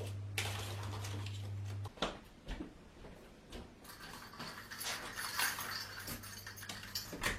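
Household handling sounds: scattered light clicks and rustling as objects are moved about, with a sharp click near the end. A steady low hum stops about two seconds in.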